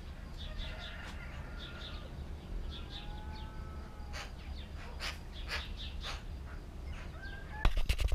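Birds chirping in quick short notes, with a few longer whistled calls, over a steady low rumble. Near the end a louder burst of sharp clicks and knocks cuts in.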